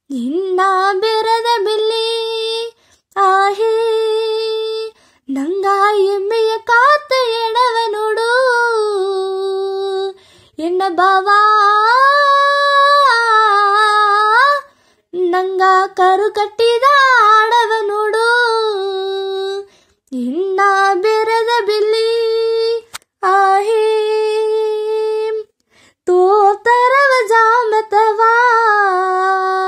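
A girl singing a Badaga song unaccompanied, in phrases a few seconds long with short breaks for breath between them.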